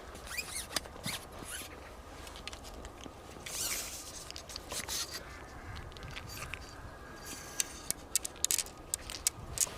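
Close handling noises of fishing tackle: light rustling and scraping with scattered sharp clicks, a short rustle about three and a half seconds in, and a quick run of ticks near the end.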